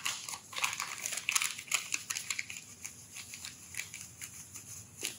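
A wad of newsprint rubbed over an inked copper etching plate, giving irregular papery scratching and crinkling strokes as the excess ink is wiped off the surface. The strokes come thick and fast for the first couple of seconds, then grow lighter and sparser.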